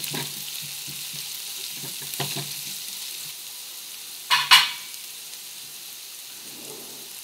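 Chopped onion sizzling in a frying pan on a gas hob, with a spatula scraping the pan as it is stirred in the first couple of seconds. Two sharp clatters about four and a half seconds in are the loudest sounds.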